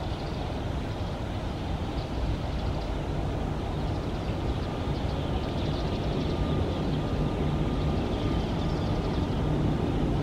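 Distant ATR 72-600 twin-turboprop airliner on approach, its engines and propellers a steady low drone that grows slowly louder as it comes in, with a faint thin whine over it from about halfway.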